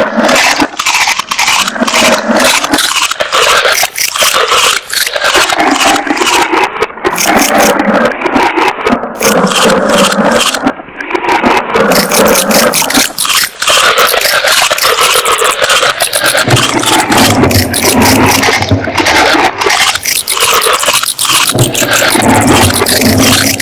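Loud, continuous crunching and scraping made of rapid, irregular crackles, with a low hum-like tone joining in the later part.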